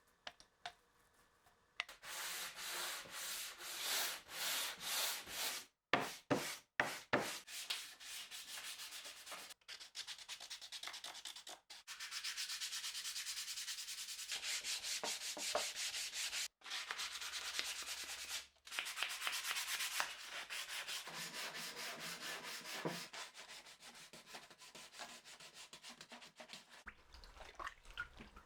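Wood being sanded by hand with sandpaper: rhythmic back-and-forth rubbing strokes, about two a second at first, then denser, more continuous rubbing. It breaks off abruptly several times.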